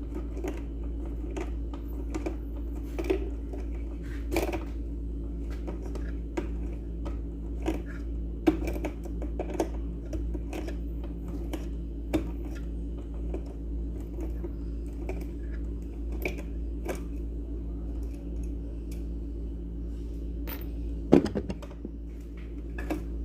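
Irregular small clicks and taps of mixer grinder parts being handled during disassembly, with a louder knock or two near the end, over a steady low hum.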